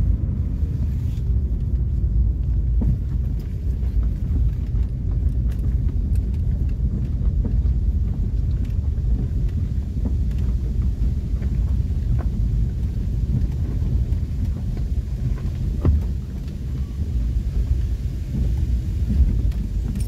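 Steady low rumble of a car driving slowly over a rough, broken road and gravel, heard from inside the cabin, with a few faint knocks and rattles.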